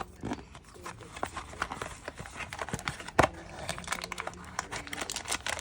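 Blind-box packaging being handled and opened: plastic and paper crinkling and rustling, with many short sharp clicks and taps, one louder click a little past three seconds in.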